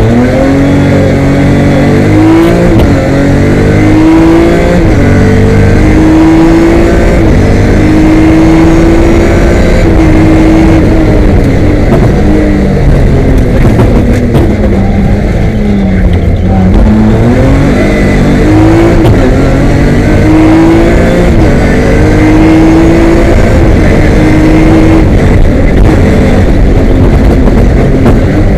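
BMW M3 rally car's engine, heard from inside the cabin, driven hard on a stage: the note climbs under full throttle and drops back at each gearshift and for corners, with a deeper lull about halfway through before it pulls up again.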